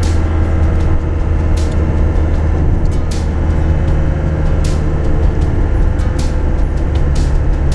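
Scudo camper van driving: a steady low engine and road drone with scattered short knocks and rattles.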